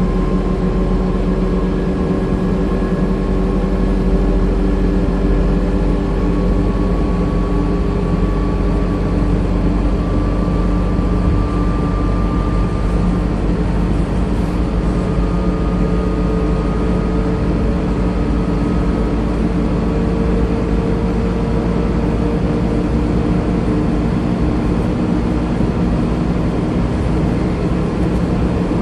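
Scania K230UB bus's rear-mounted diesel engine and ZF automatic gearbox under way, heard from the rear seats of the passenger saloon: a steady low drone with whining tones that slowly rise in pitch.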